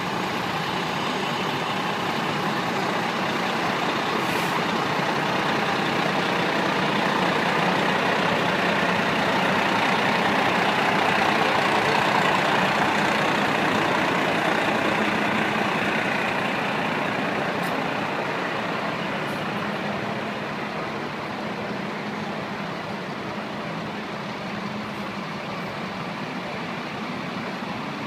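Fire truck's diesel engine and tyres as it rolls slowly past close by, a steady rumble that builds to its loudest about halfway through and then fades as the next trucks come up behind.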